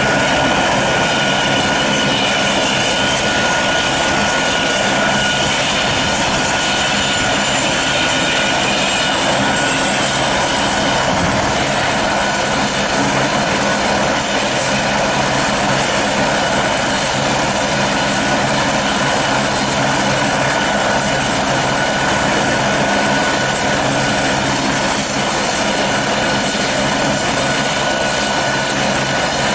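Airbus Helicopters AS355N Écureuil 2 running on the ground, its twin turboshaft engines whining steadily under the sound of the turning main rotor. A high thin whine sets in about ten seconds in and holds.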